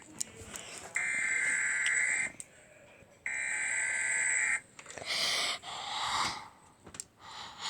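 Emergency Alert System header tones: two harsh, buzzing electronic data bursts of about a second and a quarter each, about a second apart, the last of a set of three that marks the start of an alert. A few short, rougher sounds follow in the second half.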